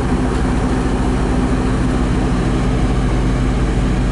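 A large engine running steadily with a low, even hum and a fast rumbling pulse underneath.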